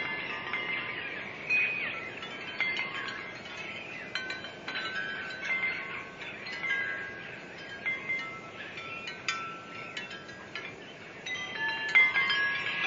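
Wind chimes ringing in the wind: irregular strikes of several pitched tones that overlap and fade, now sparse, now in clusters, busiest near the end.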